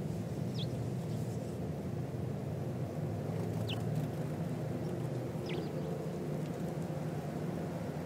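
Steady low background rumble, with three brief high chirps from small birds: one about half a second in, one just under four seconds in, and one about five and a half seconds in.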